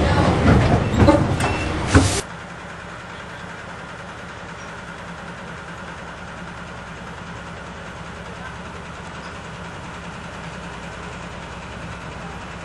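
Loud rattling and clanking from on board a narrow-gauge train for about two seconds. Then it cuts abruptly to a steady low hum from a narrow-gauge diesel locomotive idling.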